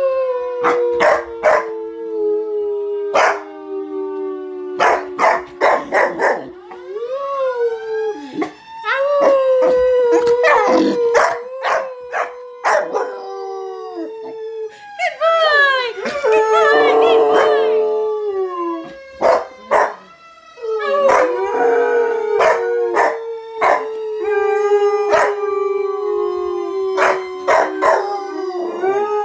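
Dogs howling, a Bouvier des Flandres puppy and a Doberman pinscher: long wavering howls, at times two at once, broken again and again by short sharp yips and barks.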